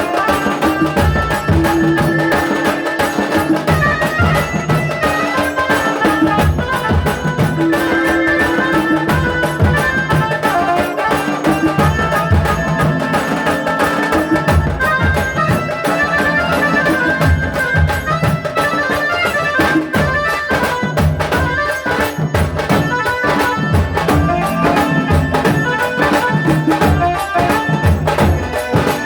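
Tasa drum band playing: dense, fast drumming under a continuous reedy wind-instrument melody, loud and unbroken.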